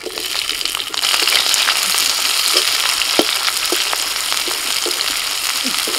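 Sliced onions sizzling in hot oil with whole spices in a kadai, a steady frying hiss that swells about a second in as they are stirred with a metal spatula, with light scrapes and clicks against the pan.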